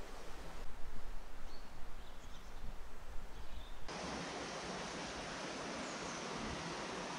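Outdoor wind noise buffeting the microphone, unsteady in loudness, with a few faint bird chirps. About four seconds in it cuts abruptly to a steady, even hiss.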